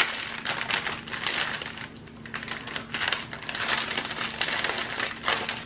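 Crinkling and rustling of thin plastic packaging as a strip of small bags of diamond-painting drills is unwrapped and handled, with quick irregular crackles throughout.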